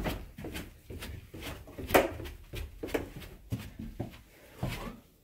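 Footsteps going down a staircase, about two steps a second, with a sharper knock about two seconds in.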